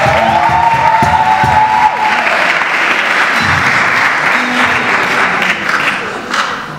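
Audience applauding as a song ends, over the fading last held note of the singing in the first two seconds. The clapping dies away near the end.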